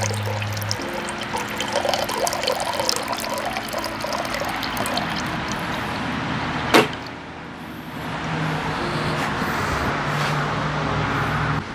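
Filtered water trickling from the plastic spigot of a homemade two-bucket gravity water filter into a mug. There is one sharp knock about seven seconds in.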